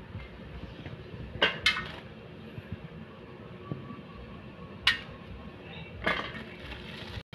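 A kitchen knife clinking against an aluminium colander while green beans are trimmed: a pair of sharp metallic taps about a second and a half in, then single taps near five and six seconds.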